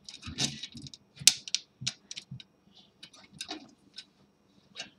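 Irregular small clicks and taps as a bolt and spring are handled and fitted through a 3D printer's metal heat bed, the sharpest click about a second in.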